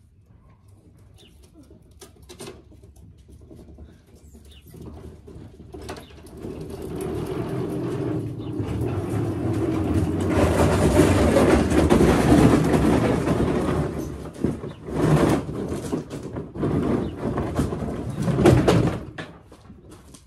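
Portable basketball hoop dragged over gravel: a grinding scrape that builds from about six seconds in, is loudest through the middle, then breaks into several shorter scrapes near the end.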